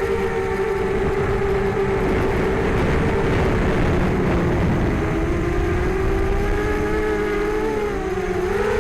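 Six small brushless motors (1804 size, 2400Kv) with 5030 two-blade props on a mini hexacopter, giving a steady multi-tone whine in flight, with a rumbling noise underneath. Near the end the pitch dips and climbs back as the throttle changes.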